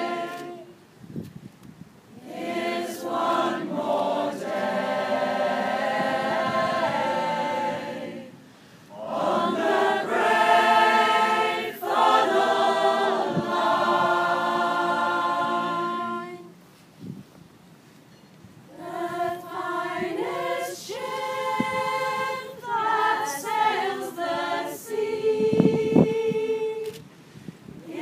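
Mixed a cappella choir of men's and women's voices singing a sea song in phrases, with short breaks between them and a longer pause about two-thirds of the way through.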